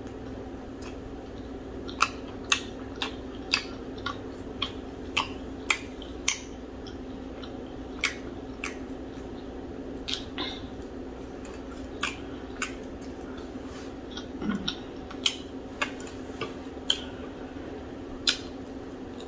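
Close-up eating sounds: irregular sharp mouth clicks and smacks while chewing, about one a second, over a steady low background hum.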